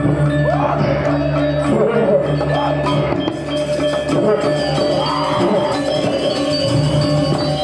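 Balinese gamelan orchestra playing loudly and continuously: bronze metallophones and gongs ringing over drums.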